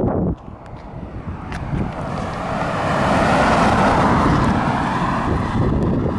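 A car passing close by: its tyre and engine noise swells to a peak a few seconds in and then fades away.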